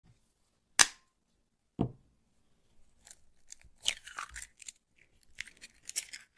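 An egg being cracked: a sharp crack against a hard edge, a duller knock about a second later, then a few seconds of small crackling clicks of the shell being broken open.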